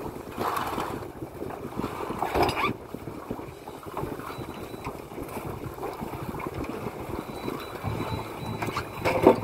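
Wind buffeting the microphone over water slapping against a small boat's hull on choppy water, with three brief louder sounds about half a second in, about two and a half seconds in, and just before the end.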